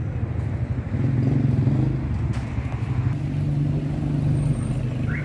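Street traffic: a nearby motor vehicle's engine running with a steady low drone that grows louder about a second in.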